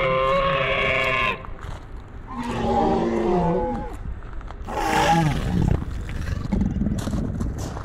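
Dinosaur roar sound effects: a long drawn-out call that ends about a second in, then two growling roars that fall in pitch, about two and a half and five seconds in.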